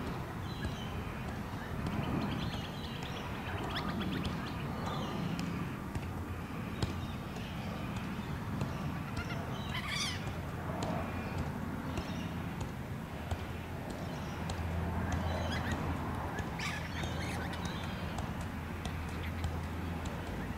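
Soft, repeated taps of a ball being juggled, over outdoor background noise with birds calling.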